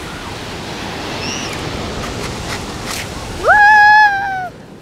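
Surf washing steadily on the beach. Near the end a loud, high-pitched call rises quickly and holds for about a second before it stops.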